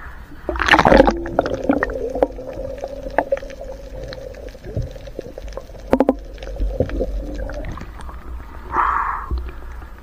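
Water heard from just under the surface: a splash about a second in, then muffled underwater clicks and knocks over a steady low hum, and another brief splash near the end.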